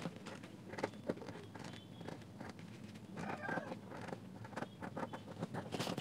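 Metal spatula scraping old foam surround and dried glue off the rim of a small 40 mm speaker driver: faint, irregular scratches and ticks, with a denser scratchy stretch about three seconds in and a louder scrape at the very end.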